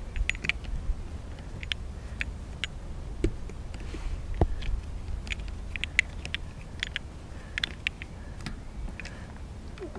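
Light, irregular clicks and taps of hand work on a bicycle's rear derailleur and its cable, over a low steady rumble.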